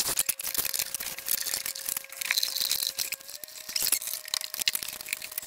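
Irregular light clicks, taps and rustling of hands working around the composting toilet's vent-fan housing, hose and wiring, with the camera handled close by.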